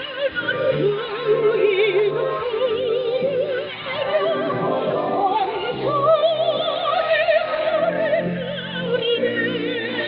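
A woman singing in operatic style with wide vibrato over orchestral accompaniment, heard through a shortwave receiver with a narrow bandwidth that cuts off the high end.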